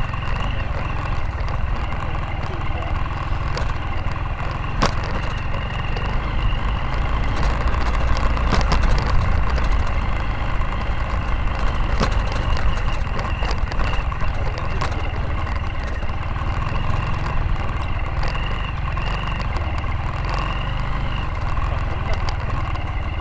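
Motorcycle engine running at low speed on a rough, rutted dirt road, heard from the bike itself as a steady low rumble with scattered knocks and rattles from the bumps.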